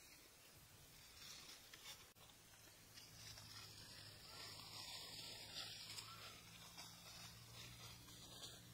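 Near silence: faint outdoor ambience with a faint steady low hum.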